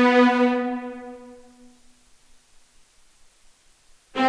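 Spitfire Albion ONE sampled orchestral strings holding a chord, then released and dying away through the recording room's reverberation to near silence. A new string chord comes in suddenly near the end.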